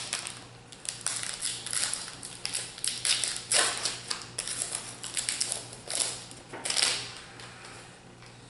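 Magic: The Gathering booster pack's foil wrapper crinkling and tearing as it is peeled open by hand, a run of irregular crackles with a few louder ones midway.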